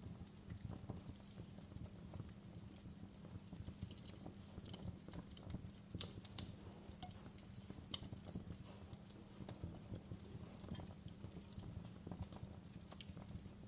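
Wood fire burning in a fireplace: a steady low rumble of flames with irregular sharp crackles and pops, one louder pop a little past the middle.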